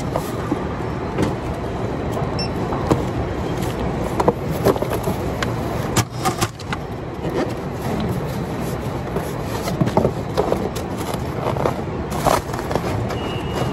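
Steady machinery hum of a warehouse packing line, with scattered knocks and rustles as a cardboard box and plastic-wrapped items are handled at the pack station.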